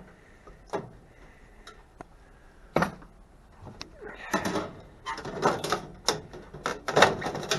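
Scattered clicks and knocks, then a run of metallic clattering and scraping as microwave parts are pulled loose and handled while it is taken apart.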